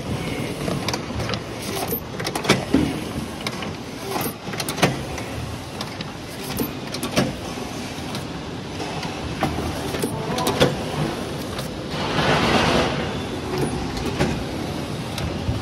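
Automatic ultrasonic paper banding machine and its tray conveyor running, with a steady mechanical hum and irregular clicks and clacks as apple trays are fed through and banded. A louder hiss lasting about a second comes about twelve seconds in.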